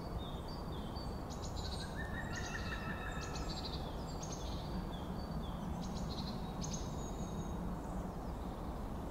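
Birds chirping and singing in short, repeated trilled phrases over a steady low outdoor rumble.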